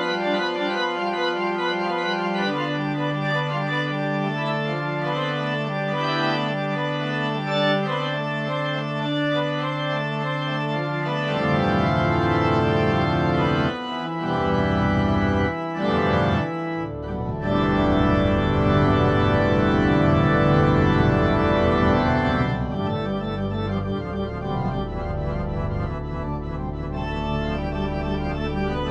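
Organ music: slow sustained chords over long held bass notes. Partway through it swells fuller and louder with deep bass, breaks off briefly twice, then thins back to lighter held chords near the end.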